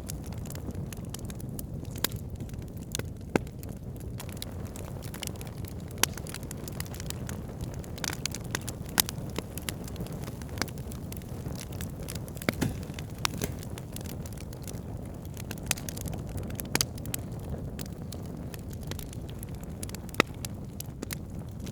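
Wood campfire burning, with a steady low rush of flames and sharp crackles and pops at irregular moments.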